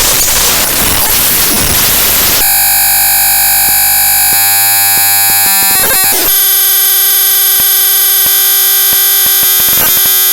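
Raw bytes of the ffmpeg.exe program file played back directly as audio. Harsh, loud static for about the first two and a half seconds gives way to a steady, buzzing drone of several fixed tones, broken by a brief glitchy stutter around six seconds in.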